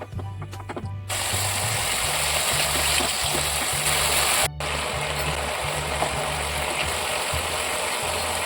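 Background music with a steady bass beat, joined about a second in by loud, steady hissing noise. The hiss breaks off for an instant near the middle and then carries on.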